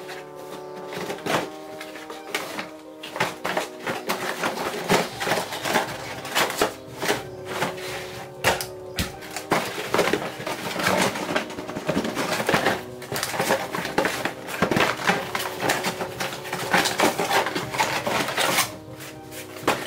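Cardboard packaging being handled: many quick rustles, scrapes and taps of cardboard flaps and inserts, over background music with steady held tones.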